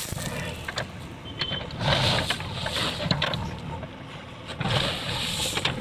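JCB 3DX backhoe's diesel engine running steadily while its bucket scrapes through crushed stone, with loose stones rattling and sliding in two louder spells, about two seconds in and near the end, and scattered clicks of stone between.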